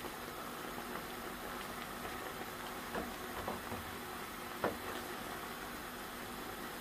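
A pot of pork trotters at a steady boil, the liquid bubbling, with a few light knocks of a slotted turner against the pot and meat about three seconds in and once more, louder, near the five-second mark.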